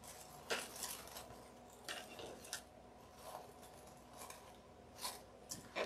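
Faint, sparse crinkles and rustles of ruffled paper coffee filters being pressed and smoothed by hand, a handful of short crisp sounds spread through it.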